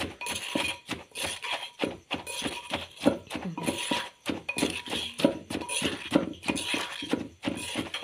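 Hand mixing a wet mushroom laab in a clay mortar: squishing and rustling of the mixture, with irregular knocks of the hand against the earthenware bowl.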